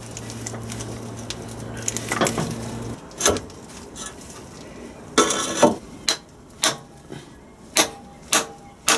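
A steady low hum stops about three seconds in, followed by metal clatter. Then come sharp metal taps about twice a second, a hammer striking a socket held against the grease-packed clutch spigot bush in the end of the TD5 crankshaft to force the stuck bush out.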